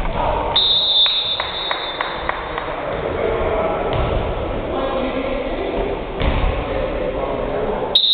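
Echoing gymnasium sound during a volleyball game: indistinct voices and shuffling on the court. A steady high-pitched tone starts about half a second in and lasts about three seconds, with a run of light ticks under it. The tone returns with a sharp click near the end.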